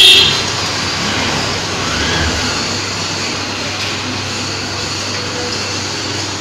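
Street traffic noise, steady and even, as a motorcycle and a cycle rickshaw pass. A loud high tone breaks off right at the start.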